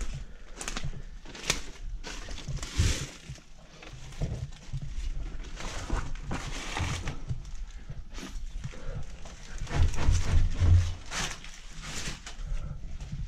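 Footsteps and rustling over dead leaves and stone, with knocks and scrapes as a wooden door is pushed open by hand, then a run of heavier low thumps about ten seconds in as the walker climbs a narrow brick stairway.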